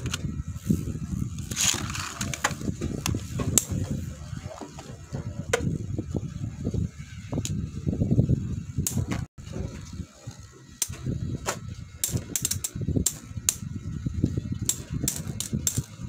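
Metal Fight Beyblades spinning on a homemade stadium floor with a steady low rumble. Sharp metallic clicks mark the clashes between the tops, coming thick and fast near the end.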